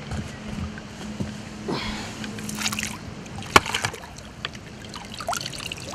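Water sloshing and splashing as a common carp is slipped from a landing net back into the lake, with scattered small splashes and one sharp tap about three and a half seconds in.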